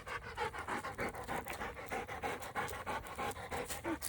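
Dog panting fast and rhythmically, about five breaths a second.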